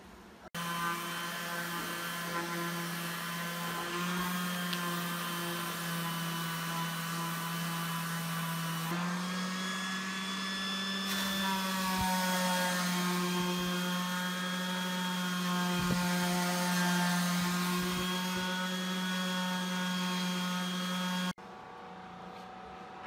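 Random orbit sander running steadily on cherry boards, sanding off saw-blade burn marks; its hum steps slightly higher about nine seconds in. The sound cuts off suddenly near the end, leaving quieter room sound.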